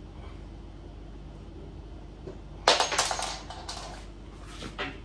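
Metal clinking and rattling, a quick burst of sharp clicks a little past halfway and another near the end, as small hardware and tools are handled while the desk's screws are tightened.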